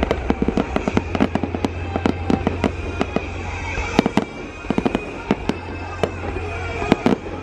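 Fireworks display: a fast run of pops and crackles from bursting aerial fireworks, thinning out after about four seconds, with sharper single bangs about four and seven seconds in.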